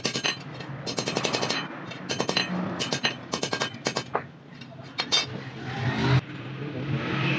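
Hand hammer striking a flat steel bar as it is bent around a cast-iron bending jig: an irregular run of ringing metal clangs, some in quick clusters, stopping about six seconds in.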